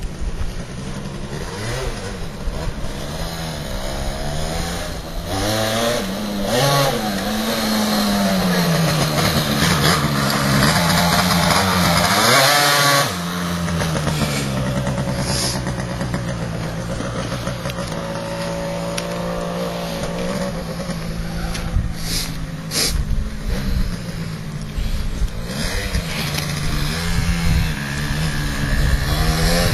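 Two-stroke Malaguti Fifty moped with a 70cc Polini cylinder kit being ridden, its engine revving up and down over and over so the pitch keeps rising and falling, with one hard rev about halfway through that cuts off sharply.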